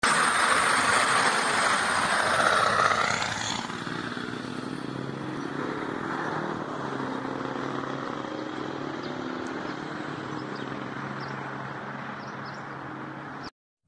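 School bus with an International diesel engine driving away: a loud rush of engine and road noise as it passes close, then a steady engine drone that slowly fades as it goes off down the road.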